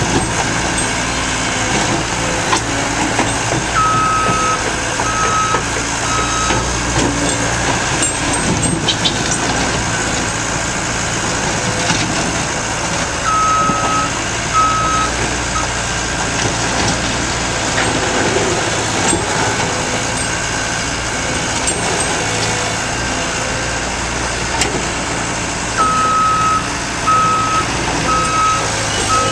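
Caterpillar skid steer's diesel engine running steadily under work, with its backup alarm beeping in three short spells as the machine reverses: a few beeps about four seconds in, two or three around the middle, and more near the end.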